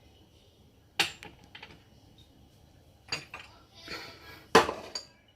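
A few sharp knocks and clatters of hard kitchenware being handled, spaced irregularly; the loudest comes a little after four and a half seconds.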